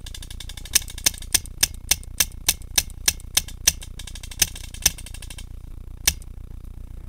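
Paintball marker firing a quick string of shots, about three a second, then one more shot a second later. A steady high whir runs under the string and stops soon after it.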